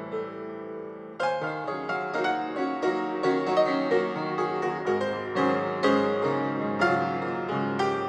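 Background piano music: a held chord fading away, then a steady flow of struck notes starting again about a second in.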